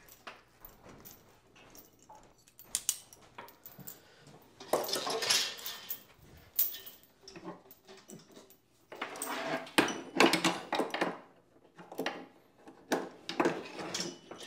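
Metal clinking and rattling of a cable pulley setup being rigged, with a cable lengthener hooked on and the cable worked through the pulleys. Scattered clicks, with three louder stretches of scraping rattle about five, nine and thirteen seconds in.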